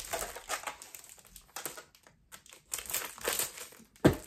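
Plastic packaging crinkling and rustling in irregular bursts as it is handled and pulled open, with one sharp knock about four seconds in.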